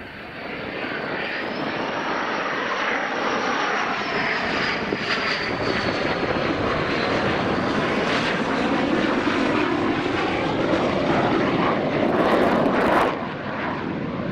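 Twin General Electric F414 turbofans of a Boeing Super Hornet-family fighter jet on landing approach with gear down: a loud, steady jet rush. A high whine rises and then falls over the first few seconds, and the level drops suddenly near the end.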